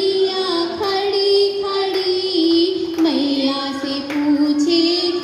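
Women singing a song, led through a microphone, with a dholak drum and handclaps keeping the beat.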